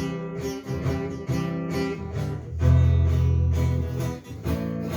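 Acoustic guitar being strummed, chords played in a rhythmic pattern with no singing, with a louder low chord ringing out for about a second midway.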